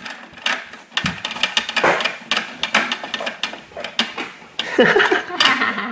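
Hard plastic clicking and clattering as the rear bin-lifting arm of a Bruder toy garbage truck is worked by hand, tipping two small plastic wheelie bins.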